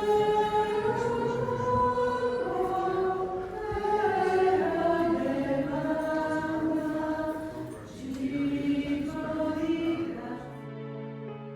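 A group of voices singing a hymn together. About ten seconds in the singing gives way to soft instrumental background music with held notes.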